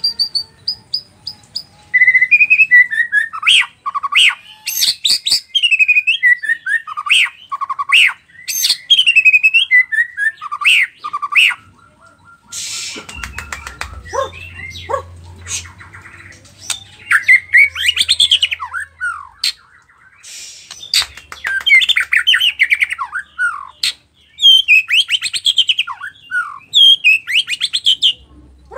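Nias white-rumped shama (murai batu) singing continuously: loud, varied phrases of clear whistles, fast rising and falling sweeps and rapid trills and clicks, separated by short pauses, its song full of mimicked fill phrases (isian).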